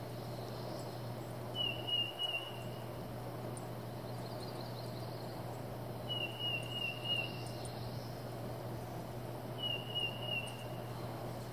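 A songbird singing three short phrases of quickly repeated notes, several seconds apart, over a steady low background hum.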